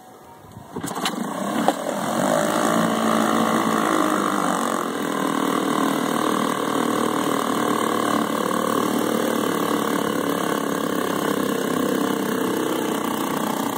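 Eska 5HP two-stroke outboard motor pull-started, catching about a second in, revving up and then settling into steady running on test after a carburetor service. Its propeller is churning the water in a test tank.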